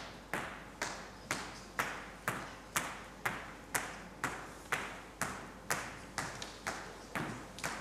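Hard-soled shoes stepping on a stage floor at an even walking pace, about two steps a second. Each step is a sharp click that echoes in the large hall.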